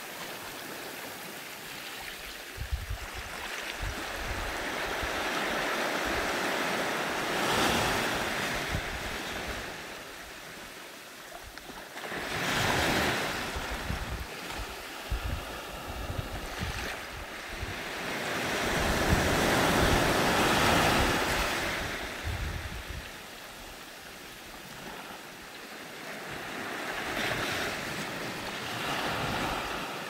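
Small waves breaking on a sandy beach and washing up the shore, the wash swelling and fading about every six to eight seconds.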